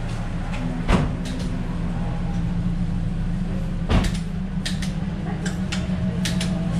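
Steady low hum of an engine running, with two sharp knocks, about a second in and about four seconds in, and lighter clicks near the end.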